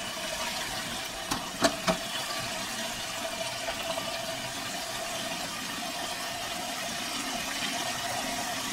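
Water running through the float-operated inlet valve into the concealed in-wall cistern of a Cersanit wall-hung toilet as it refills, a steady hiss with a steady tone in it; a few light clicks about a second and a half in. The inlet valve has just been cleared of dirt that had jammed it, and the tank is filling normally.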